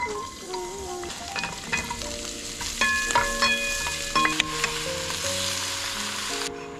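Garlic, carrots and cabbage sizzling in a hot pan on a portable gas stove as they are stir-fried with a wooden spatula, with a few sharp knocks around the middle. The sizzling cuts off suddenly near the end.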